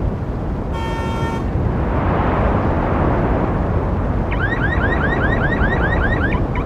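Road traffic running steadily, with a short car horn toot about a second in and a vehicle passing close. From about four seconds in, a car alarm sounds rapid rising whoops, about four or five a second, over the traffic.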